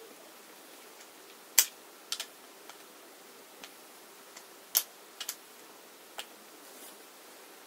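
Hex key clicking against a screw in a metal furniture flange as the screw is tightened: about seven sharp, irregular clicks, two of them louder than the rest.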